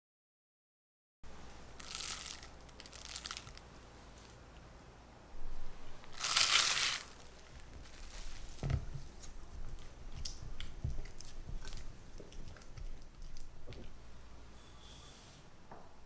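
Crinkling and tearing of packaging in short bursts, loudest about six seconds in. Then a spatula works soft cream cheese in a glass bowl, with light knocks against the glass, and sugar is poured in with a brief hiss near the end.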